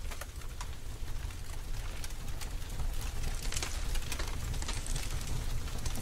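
Road noise heard from inside a car driving on a wet road: a steady low rumble with tyre hiss and many scattered short clicks, slowly growing louder.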